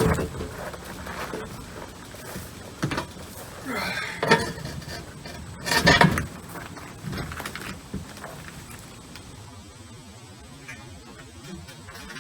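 Irregular knocks and scraping of a refrigerator on a hand truck being pushed and bumped, loudest about four and six seconds in, then quieter.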